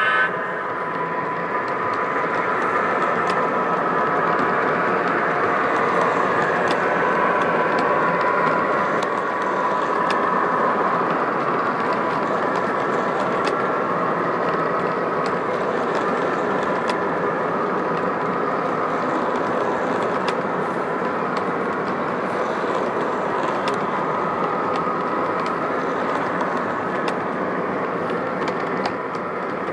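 O-gauge model freight train of double-stack container cars rolling past on the track: a steady running rumble with faint scattered clicks of wheels over rail joints.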